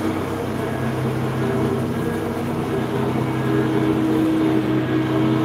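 Steady mechanical drone at an even pitch, like an engine or machine running without change.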